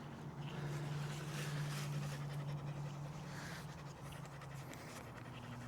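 Doodle dog panting steadily, over a faint steady low hum.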